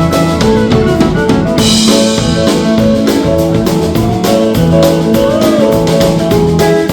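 Live roots band playing with drum kit and keyboard over a steady beat, with a cymbal crash about a second and a half in.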